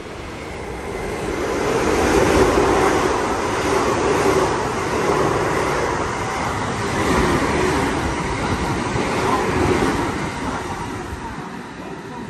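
JR West electric commuter train running through the station along the platform: a rush of steel wheels on rail and running gear that builds over the first couple of seconds, swells and eases several times, and fades as the train draws away near the end.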